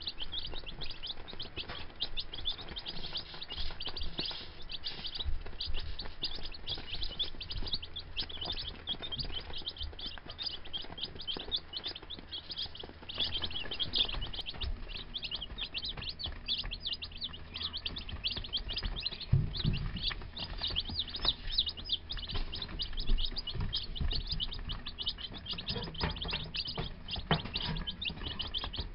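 A brood of baby chicks (Gold Star, Rhode Island Red and Buff Orpington) peeping constantly, many quick high peeps overlapping without a break.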